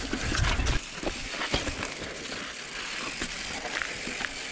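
Mountain bike rolling down a rocky trail: tyres running over rock and dirt with many short clicks and knocks as the bike rattles over the bumps, with a low rumble in the first second.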